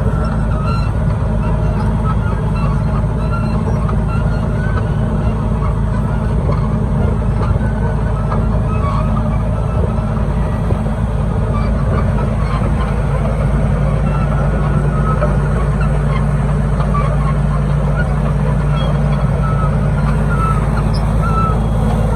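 A large engine running steadily at a constant speed, with a deep, even drone.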